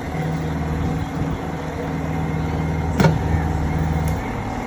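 A steady low motor hum that cuts off about four seconds in, with one sharp click about three seconds in.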